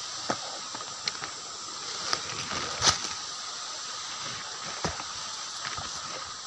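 Footsteps crunching through dry grass and leaf litter, with scattered cracks of twigs and stems, over a steady hiss in the background.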